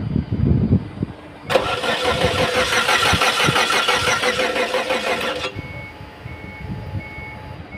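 Car engine being cranked by the starter motor in a quick, even pulsing rhythm for about four seconds, then stopping, during a check on a car that won't start. A short high electronic beep then repeats about every half second.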